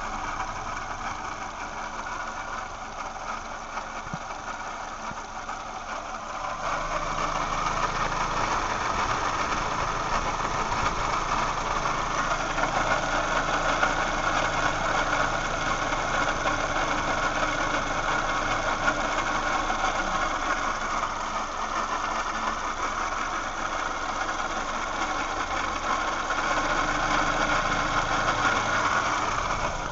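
2007 Toyota Yaris engine idling with a steady odd noise from the pulley side of the engine, where the accessory drive sits; the owner does not know its cause. It grows louder about seven seconds in and stays that way.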